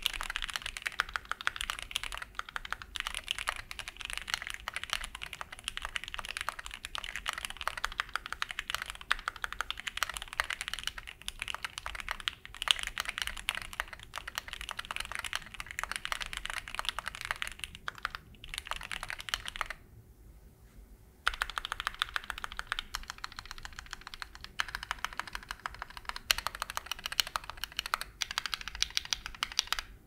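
Fast typing on a Keychron Q8 Alice-layout mechanical keyboard with Gateron G Pro Red linear switches, a steel plate and stock PBT OSA keycaps: a dense, continuous run of key clacks that pauses for about a second and a half roughly two-thirds of the way through.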